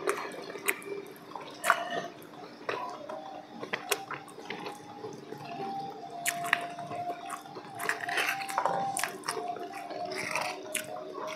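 Eating at close range: metal spoons clicking and scraping on plates, with chewing and mouth sounds, over a faint steady hum.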